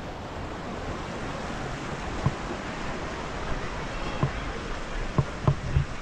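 River water rushing steadily, with a few soft low thumps in the second half.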